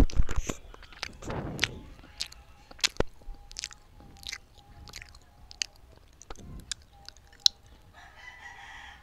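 Close-miked eating sounds: irregular sharp mouth clicks and smacks, with a louder stretch of crunching about a second and a half in.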